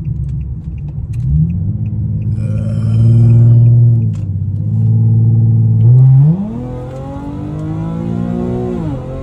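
Infiniti G37's VQ V6 pulling under acceleration through a straight-piped exhaust with the catalytic converters deleted, heard from inside the cabin. The note rises and holds loud for a few seconds, dips, climbs sharply about six seconds in, then eases and rises again before falling near the end.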